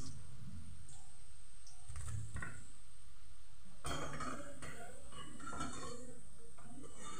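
Several clinks and knocks of a metal utensil against a ceramic plate as fried chicken cheese balls are set down on it.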